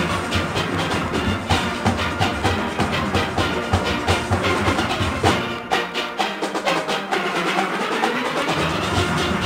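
A full steel orchestra playing: many steelpans struck in a driving rhythm. The low bass drops out for about three seconds just past the middle, then comes back in.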